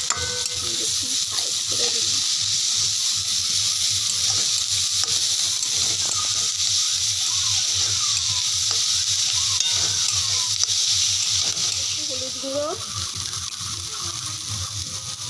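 Chopped onion, green chilli and garlic sizzling in hot oil in a steel kadai, stirred with a spatula that knocks and scrapes against the pan. The sizzle eases a little near the end.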